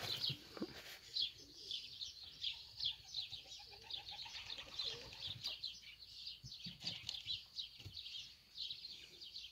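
Small birds chirping busily and continuously, many short high notes a second, with a few soft knocks in between.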